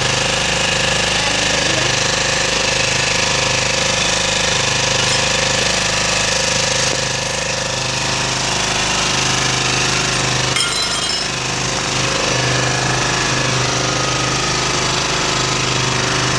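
Small 3.5 HP generator engine running steadily at a constant speed, with a brief click about ten seconds in.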